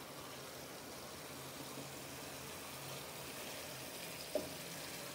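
Thick tomato and bell pepper sauce simmering gently in a frying pan, a faint steady bubbling, with a couple of faint clicks near the end.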